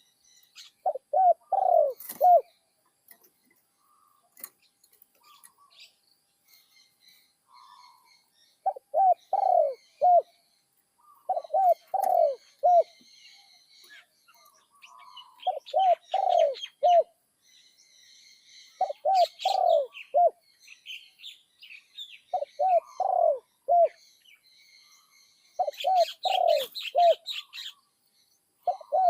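Spotted dove cooing. It repeats a short phrase of about four notes every few seconds. This is the mid-pitched voice with a single 'kuk' that Thai dove keepers prize in a bird under training.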